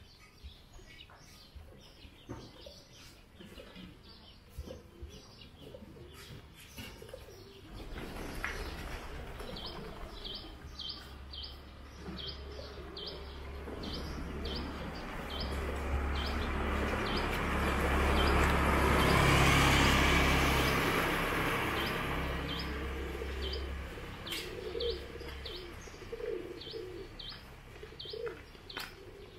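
Small birds chirping in short, repeated high calls, with doves cooing near the end. In the middle a passing vehicle's low rumble and rushing noise swells to the loudest point and fades away.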